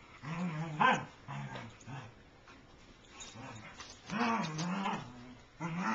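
Dogs play-fighting, growling and whining at each other in several short bouts, with a sharp, higher cry about a second in and a longer grumbling growl near the end.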